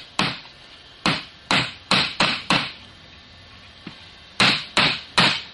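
Hammer driving a nail into a thin wooden board: six quick blows, a pause of nearly two seconds, then three more.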